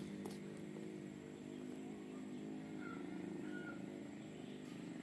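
A steady low mechanical drone with evenly spaced overtones, as from a distant engine running, with two short high chirps a little past the middle.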